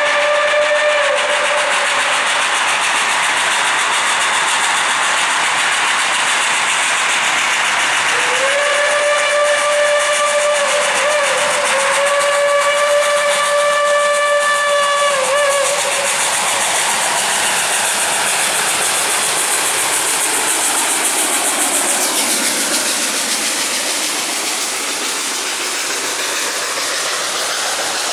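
Reading 4-8-4 steam locomotive No. 2102 blowing its steam whistle for a grade crossing over the hiss of steam: the end of one blast, then whistling again from about 8 to 16 seconds in, broken once briefly. After that the whistle stops and the steady rush and rumble of the passing empty coal hoppers takes over.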